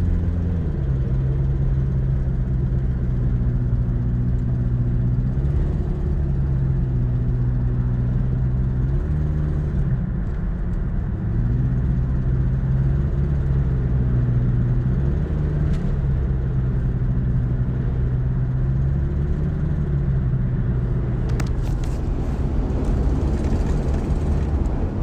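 Car engine pulling under load, its pitch stepping up and dropping back several times as the revs change. Under acceleration it makes a knock-like noise that the owner cannot place as engine knock or an exhaust leak.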